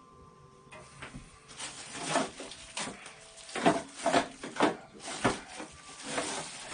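Packing material and box contents being handled: a run of irregular rustles, scrapes and light knocks starting about a second and a half in, as parts are pulled out of the box.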